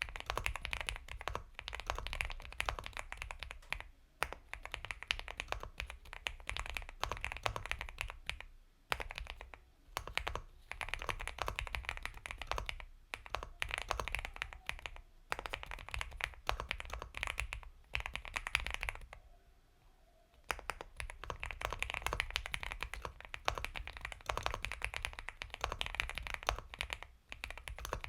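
Typing on an Epomaker x Feker Galaxy 80 mechanical keyboard with Gateron Milky Yellow Pro linear switches: soft, creamy keystrokes in fast runs, broken by brief pauses, the longest a little before two-thirds of the way in.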